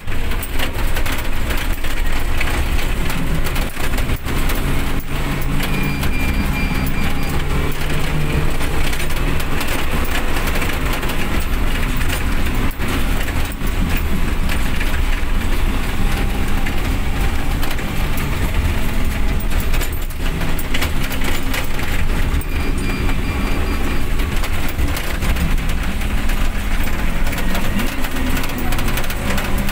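Steady engine and road noise inside a minivan's cabin while driving on a wet road, the engine note shifting in pitch now and then.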